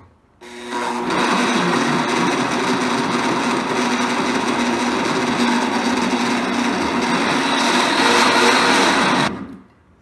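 Blendtec blender running at high speed, blending chopped celery with a little water into a purée. The motor starts about half a second in, comes up to a steady high whine within a second, and stops abruptly shortly before the end.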